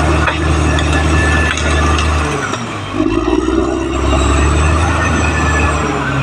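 Caterpillar D6R XL bulldozer's diesel engine running under load, with faint high metallic squeals from the crawler tracks. The engine note dips about two seconds in, then comes back stronger a moment later.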